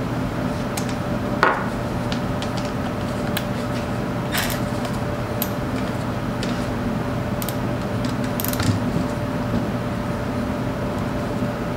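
A few light metal clinks and taps as a cordless ratchet and socket are handled and set onto a plug on an aluminium overdrive housing, over a steady low hum.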